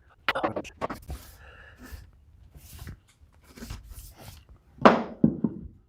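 Irregular knocks, clicks and clunks of things being handled on a workbench, with the loudest thump, ringing briefly, near the end, followed by two lighter knocks.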